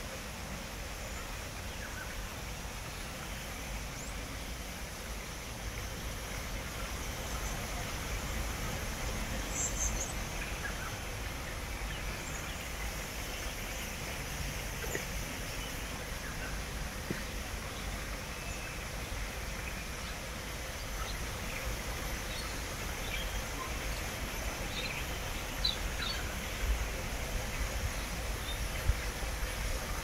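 Steady outdoor background noise, a low rumble under a soft hiss, with a few faint, short high bird chirps scattered through it: a small cluster about ten seconds in and several more near the end.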